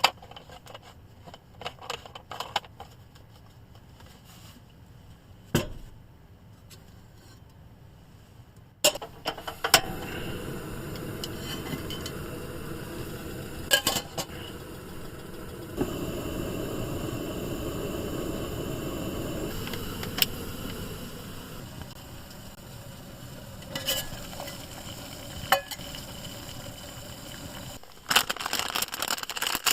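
Camp cooking: pots, utensils and cookware knocking and clinking, with a steady hiss starting about a third of the way in and running under the knocks. A burst of rustling and crinkling comes near the end.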